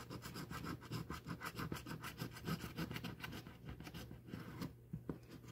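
A coin scraping the scratch-off coating from a paper lottery ticket in quick, repeated short strokes, easing off briefly near the end.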